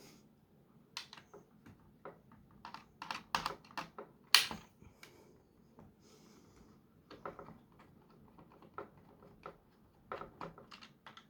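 Irregular plastic clicks and clacks from the internal parts of a partly disassembled Nerf Gatling blaster being worked by hand, with one sharper knock about four seconds in.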